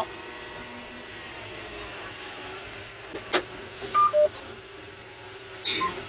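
Steady hum of a tractor engine heard inside the cab, with a sharp click a little past three seconds in and a two-note falling beep about a second later from the John Deere guidance display, the alert for AutoTrac steering disengaged by operator override.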